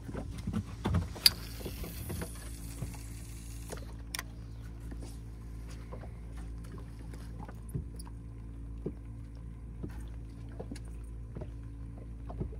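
Steady mechanical hum of a motor aboard a small fishing boat, even and unchanging, with scattered light clicks and knocks over it and a brief hiss about two seconds in.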